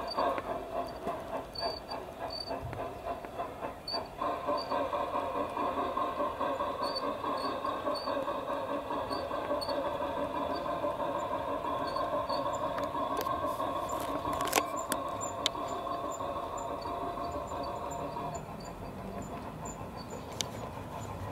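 Home-built garden-railway model of the Mh.6 steam locomotive running with its coaches: a quick, rhythmic rolling rattle of wheels and drive on the track, with a light steady squeal from the tender, which is unoiled and was cured afterwards with a few drops of oil. A couple of sharp clicks come about two-thirds through, and the sound drops a little near the end as the train draws away.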